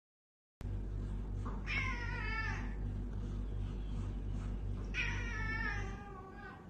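A cat meowing twice, each meow falling in pitch, over a steady low hum.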